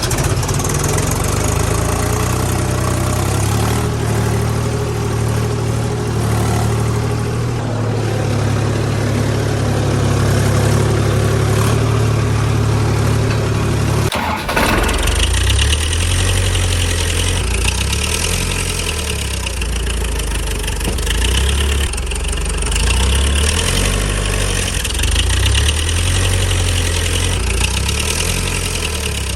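Vehicle engine running steadily at idle, with an even low rumble; about halfway through it changes abruptly to a different, choppier engine sound. Since die-cast models make no engine noise, this is an added engine sound effect.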